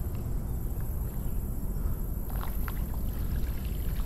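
Steady low rush of fast-flowing floodwater, with a few faint ticks or splashes about two and a half seconds in.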